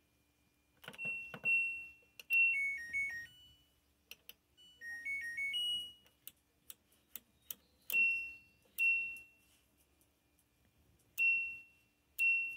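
LG clothes dryer's control panel beeping as its buttons are pressed and its cycle-selector knob is turned: short high single beeps, a quick falling three-note tune and then a rising one, with soft clicks from the knob between them.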